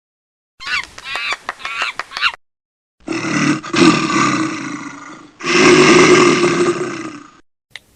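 Animal sounds: a quick run of short, pitched calls, then two long, rough roars of about two seconds each, the second the louder.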